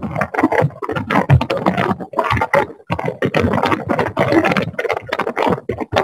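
Irregular crackling and scraping interference noise coming through a participant's open microphone on the video call. It runs continuously without clear speech.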